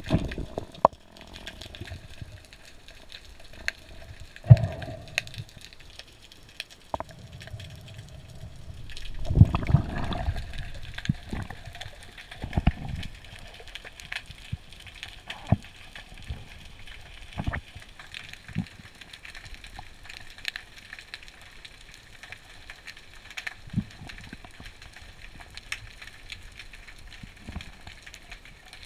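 Underwater sound picked up through a camera's waterproof housing during a dive: a low hiss with scattered sharp clicks and knocks, and a louder rush of water about nine to eleven seconds in.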